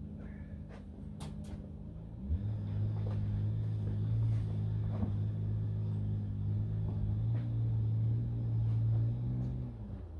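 A machine running with a low, steady hum that starts suddenly about two seconds in and stops shortly before the end, with a few light clicks and knocks of handling.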